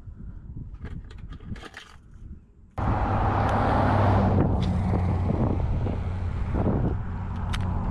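Light plastic clicks and rattles of a tackle box's lift-out trays being handled. About three seconds in, this gives way suddenly to a loud, steady outdoor rumble with a low hum.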